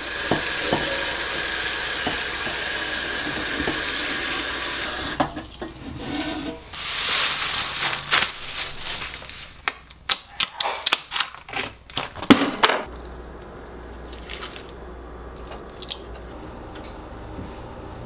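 Kitchen tap running into a metal pot in a steel sink for about five seconds, then more running water, then a quick cluster of sharp clicks and knocks. After that, a low steady hum with a few faint ticks.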